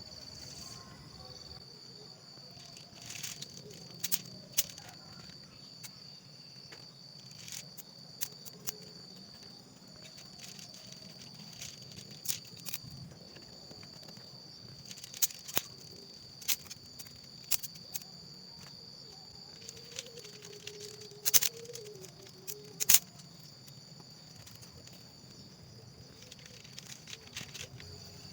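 Forest insects keep up a steady high-pitched drone, with scattered sharp clicks and snaps on top, the loudest two near the end.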